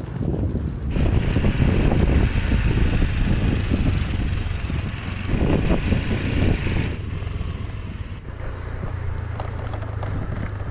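Wind buffeting the microphone and tyre rumble from a bicycle being ridden on a rough rural road, with the mic on the moving bike. The noise shifts abruptly about a second in and again around seven seconds in.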